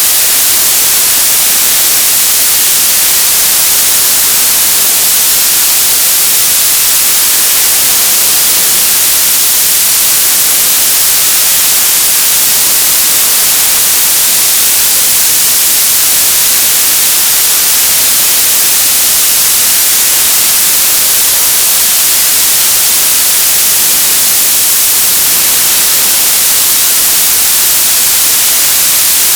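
Television static: a loud, steady hiss of white noise, brightest in the high frequencies, without any change.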